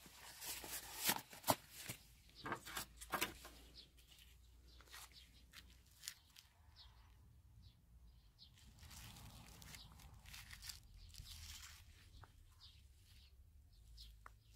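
Rubber-gloved hand picking up and handling rusty old pliers: a cluster of clicks and rustles in the first few seconds, then quieter scattered crackling rustles as the pliers are turned over and the handles spread.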